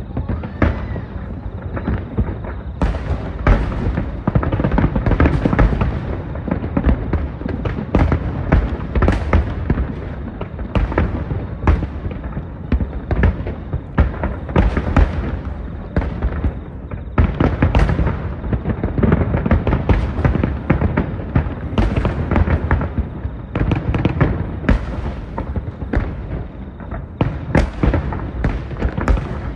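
Fireworks going off: a dense, unbroken run of bangs and crackles, several a second, over a deep low rumble.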